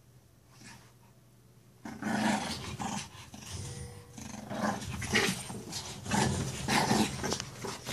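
Shih Tzu puppy growling in play as it wrestles a plush toy: a run of short, irregular growls starting about two seconds in.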